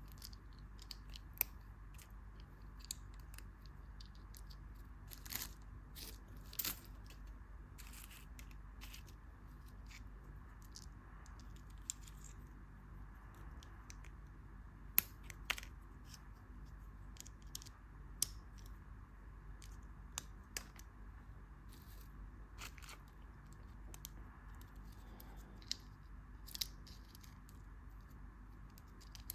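Candy and its packaging handled close to the microphone: scattered, irregular clicks and crinkles over a faint, steady low hum.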